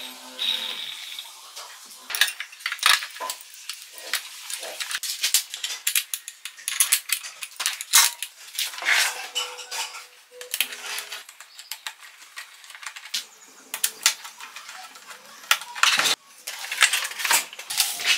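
Irregular metallic clinks, taps and knocks of a metal gear housing and a screwdriver as the housing is handled and screwed onto a small four-stroke engine.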